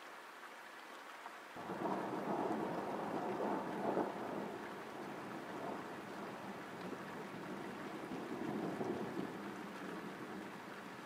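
Thunder after a lightning flash: a rumble starts suddenly about a second and a half in, is loudest for the next two seconds or so, then rolls on and slowly fades. Steady rain falls throughout.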